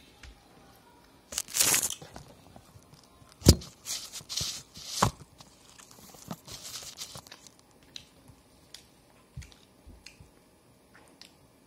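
Something being torn and crinkled in a few noisy spurts, with a sharp click about three and a half seconds in and scattered light ticks near the end.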